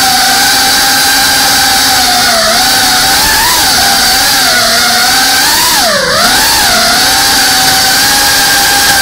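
FPV quadcopter's electric motors and propellers whining steadily, heard from the drone's onboard camera. The pitch wavers a few times and dips sharply, then recovers about six seconds in, as the throttle changes.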